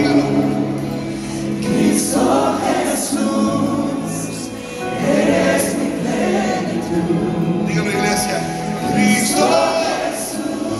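Live gospel worship music: a worship team of several singers with keyboard accompaniment, sung phrases swelling about every three to four seconds over sustained chords.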